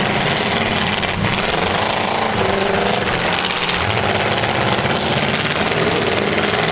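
Several demolition derby cars' engines running together in a rough, steady din, with an engine revving up about two seconds in and again near the end.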